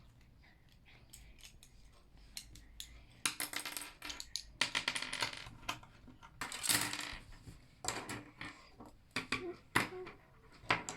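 Loose Meccano Junior parts clattering and clicking as they are handled and sorted, with a few louder bursts of rattling after about three seconds.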